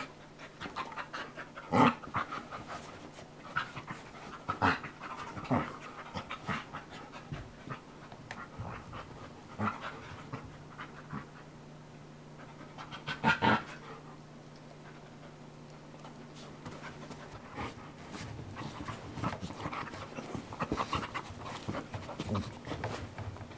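Two dogs, a German Shepherd and a Brittany spaniel/cattle dog mix, play-fighting: panting and scuffling, with short sharp sounds now and then, the loudest about 2, 5 and 13 seconds in.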